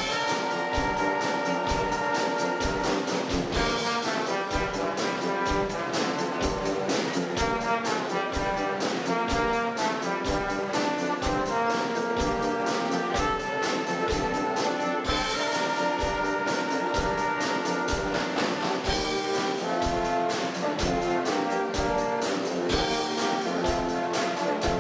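A live brass quintet of two trumpets, French horn, trombone and tuba playing a tune together, with a drum kit keeping a steady beat of bass drum and cymbal underneath.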